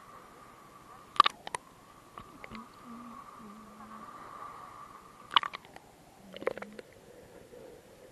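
Muffled sloshing of sea water heard through an action camera's waterproof housing as it bobs at the surface and dips under, with sharp knocks against the housing: two or three about a second in, one after five seconds and a short cluster soon after.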